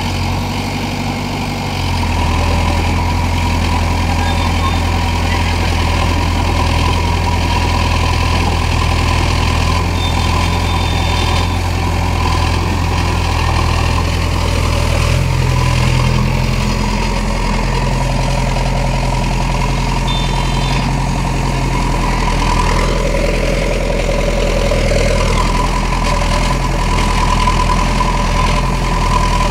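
Diesel engine of a JCB 3DX backhoe loader running steadily with the machine stuck in mud. The engine note strengthens about two seconds in and rises in pitch about halfway through as the revs come up.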